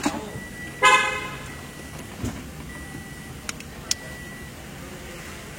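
A short car horn toot about a second in, followed by a few small sharp clicks.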